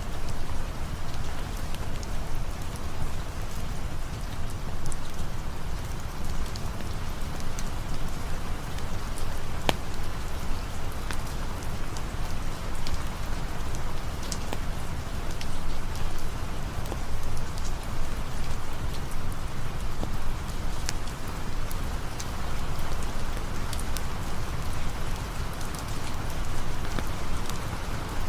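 Steady rainfall, an even hiss of drops on the ground and leaves, with scattered sharp ticks now and then.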